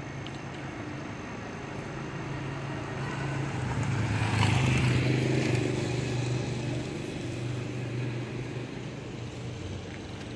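A motor vehicle passing on the street, its engine and tyre noise swelling to loudest about four and a half seconds in, then fading. A steady low engine hum runs underneath.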